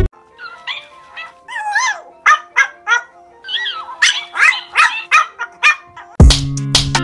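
Pomeranian yapping: a series of short, high-pitched calls whose pitch bends up and down, over faint background music. Loud music starts abruptly about six seconds in.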